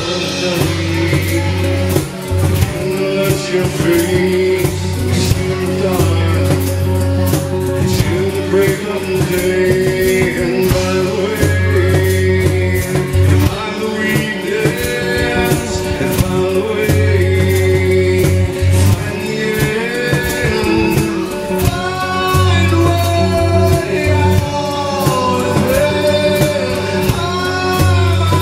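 A band playing a song live: acoustic guitar strummed, with bass guitar and a second guitar under a male lead vocal.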